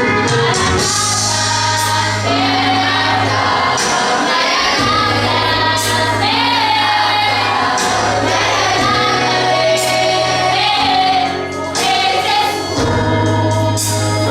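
A vocal group singing a gospel song, with female voices prominent, over instrumental backing with sustained bass notes.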